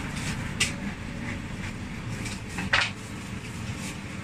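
Deli counter clatter: a few short knocks and clinks of a knife and utensils on the cutting board and steel counter over a steady background hum.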